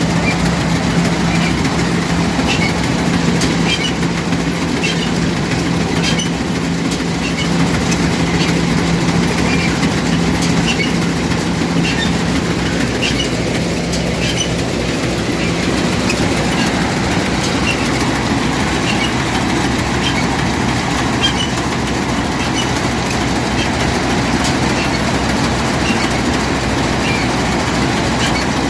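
Combine harvester running in place with its threshing unit engaged: a steady engine drone under a general mechanical clatter, with a light click about once a second. The engine note drops lower about halfway through.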